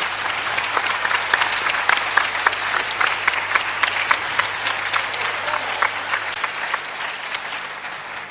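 Theatre audience applauding, many hands clapping together, dying away near the end.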